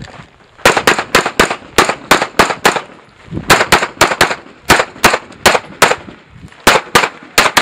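Pistol fired rapidly, a long string of sharp shots mostly in quick pairs, with short pauses about three seconds in and again past six seconds.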